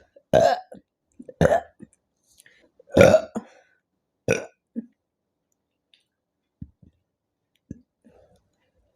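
A woman burping from carbonated Pepsi: four loud soda burps about a second apart, the third the longest and loudest, then a short small one.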